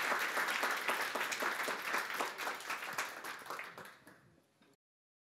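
Audience applauding, fading away about four seconds in and then cutting to silence.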